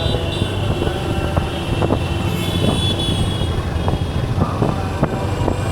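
A Kawasaki Ninja 300's parallel-twin engine runs steadily under the ride, mixed with the rumble and noise of city traffic. A few high, steady tones sound around two to three seconds in.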